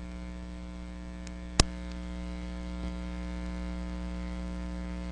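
Mains hum on an audio line fed through a long microphone cable run: a steady electrical hum with a stack of overtones. A single sharp click sounds about a second and a half in.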